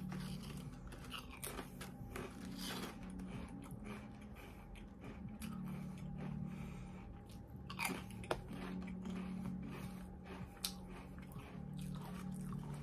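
A person biting and chewing crisp chips close to the microphone: many short crunches, with a sharper bite about eight seconds in, over a faint steady low hum.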